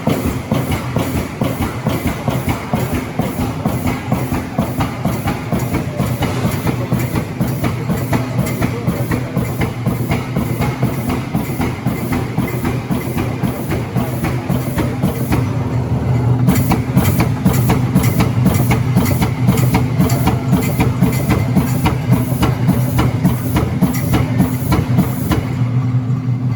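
Amada PEGA CNC turret punch press punching sheet metal, an even run of sharp hits about two to three a second over the steady hum of the machine. The hits pause for about a second past the middle and stop just before the end.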